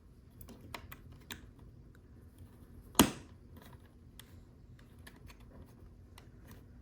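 Small plastic clicks and taps of Lego pieces being handled and fitted, with one sharp snap about three seconds in.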